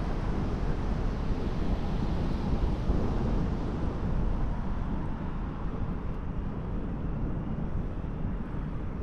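Wind rumbling on the microphone: a steady, low, gusty noise with a faint hiss above it, easing slightly about halfway through.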